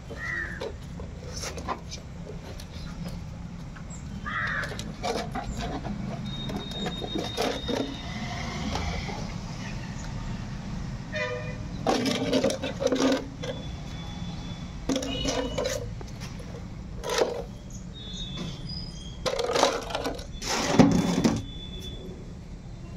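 Young Labrador puppies playing together: scattered short yelps, little growls and scuffles, the loudest cluster about twenty-one seconds in, over a steady low background rumble.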